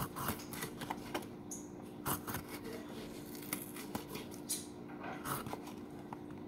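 Kitchen knife slicing a red bell pepper into strips, the blade clicking against a wooden cutting board in irregular strokes, about one or two a second. A faint steady hum sits underneath.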